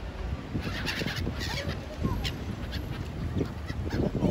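A flock of gulls calling repeatedly in short harsh cries, starting about half a second in, over a low steady rumble.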